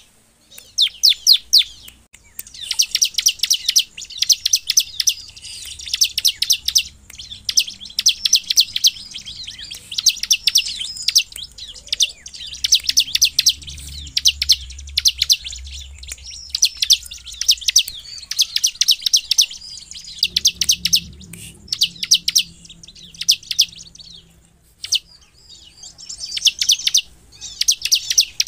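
Bar-winged prinia (ciblek) singing its rapid-fire 'nembak' song: fast runs of sharp, high chip notes, each run a second or two long, repeated again and again with short pauses.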